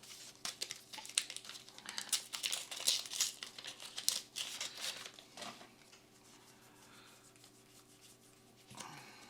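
A foil trading-card booster pack crinkling and tearing as it is ripped open, a dense crackling that dies down about five and a half seconds in to faint handling.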